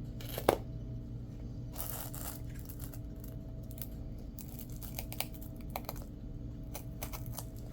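Small objects being handled: a brief tearing rustle about two seconds in and scattered light clicks, over a steady low hum.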